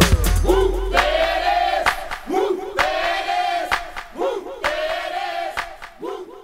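A group of voices shouting together in three drawn-out calls, each about a second long, with sharp clicks between them, after the hip-hop beat drops out.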